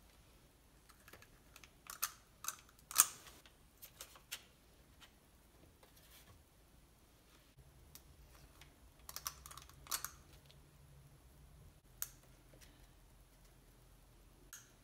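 Scattered sharp clicks and light scrapes from a stainless steel spring-release ice cream scoop working stiff cookie dough: the scoop scraping a glass bowl and its release lever snapping as it drops dough balls onto a parchment-lined baking tray. The clicks come in small groups, the loudest about three seconds in.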